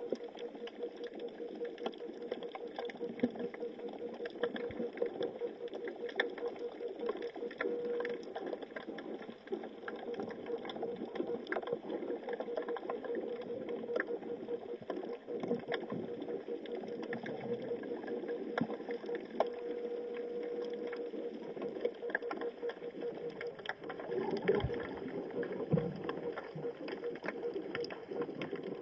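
Underwater ambience heard through a camera's waterproof housing: a steady hum under a constant haze, dotted with many scattered crackling clicks, with a few low thumps near the end.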